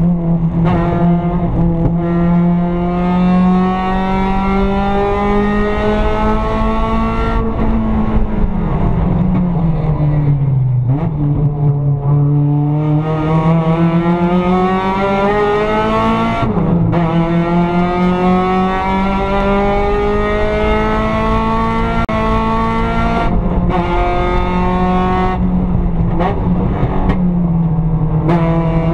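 Mazda Miata race car's four-cylinder engine heard from inside its stripped cockpit, running hard through the gears. It revs up, cuts off sharply about seven seconds in as the driver lifts and brakes, and the pitch sinks through downshifts into a slow corner. It then climbs again under full throttle with upshifts about sixteen and twenty-three seconds in.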